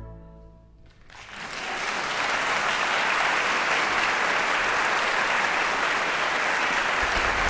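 The orchestra's final chord fades away into the hall's reverberation, then audience applause breaks out about a second in and goes on steadily.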